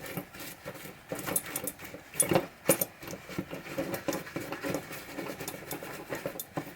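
Scratchy scrubbing and handling noise from cleaning a pinball drop-target assembly with naphtha, quick irregular rubbing and clicks of parts, with a couple of sharper clicks a little over two seconds in.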